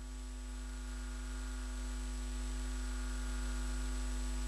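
Steady low electrical hum with a faint hiss, a set of unchanging tones that slowly grows louder during the pause in speech.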